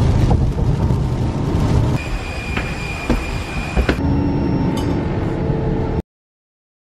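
Steady rushing noise inside an airliner cabin, from the engines and air flow, which cuts off suddenly about six seconds in.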